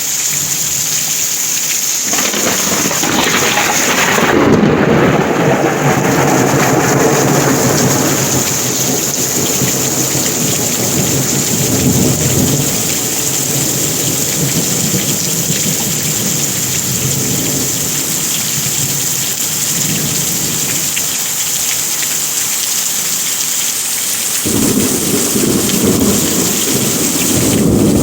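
Heavy rain falling steadily, with rolling thunder: a long rumble builds about two seconds in and dies away over the next ten seconds or so, and another starts near the end.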